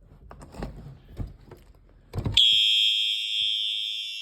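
A few handling clicks and knocks, then a Simplex fire alarm horn strobe starts sounding suddenly about two seconds in. It gives a loud, steady, high-pitched electronic horn tone that does not pulse.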